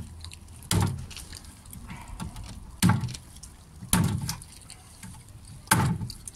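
Machete chopping raw chicken on a wooden cutting board: four heavy chops, about one to two seconds apart.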